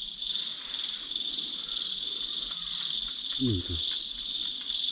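Insects chirring in a steady, high continuous trill, with one brief low voice sound about three and a half seconds in.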